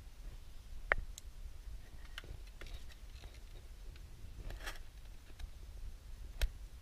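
Light handling noises as new O-rings are worked onto new pump valve seats by hand: small clicks and scrapes of the parts, a brief rustle a little past the middle, and two sharper clicks, one about a second in and one near the end.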